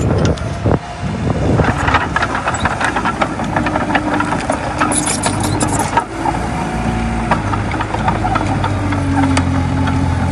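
Diesel engine of a Komatsu D20A crawler bulldozer running steadily under work, with frequent clanks and rattles from the machine and its tracks.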